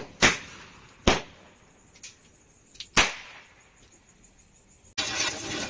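Small Diwali firecrackers going off on the ground as a few sharp, spaced-out bangs, the loudest about three seconds in. A steady rushing noise starts abruptly near the end.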